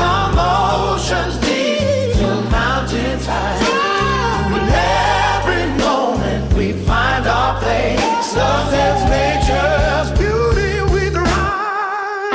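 A song with a sung melody over a steady bass line and drums; the bass drops out near the end.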